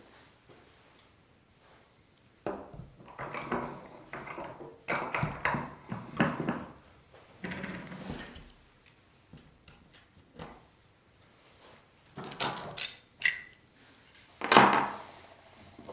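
Irregular knocks, clicks and clatter of hard parts being handled, in two clusters, with the loudest knock near the end and one brief ringing ping shortly before it.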